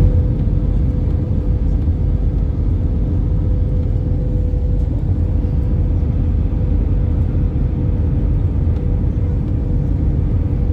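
Airliner cabin noise: a steady, loud low rumble with a thin steady whine over it.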